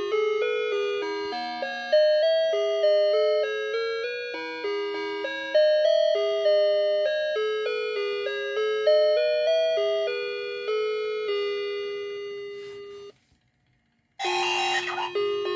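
Musical Santa figure playing a tinny electronic Christmas tune of chime-like notes, each struck sharply and then fading. The tune stops about 13 seconds in, there is a second of silence, and then another tune starts with a bright burst.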